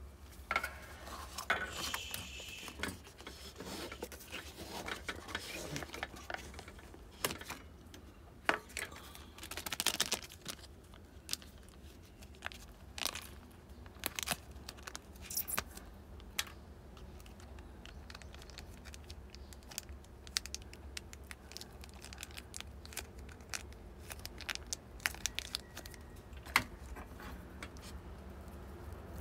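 Food packaging being handled, crinkled and torn, with many short sharp clicks and clinks scattered through, busiest in the first half, over a low steady hum.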